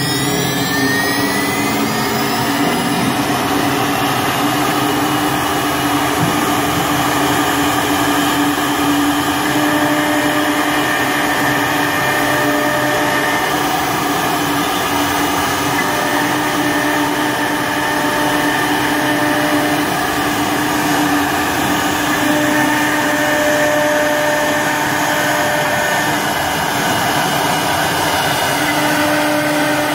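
Three-spindle CNC router machining a wood panel: steady spindle whine over the noise of the bit cutting, with tones that drop in and out as the cut changes.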